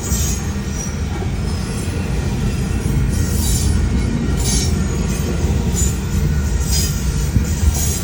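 Railway cars rolling past at close range, with a steady low rumble and short high-pitched wheel squeals breaking in every second or so.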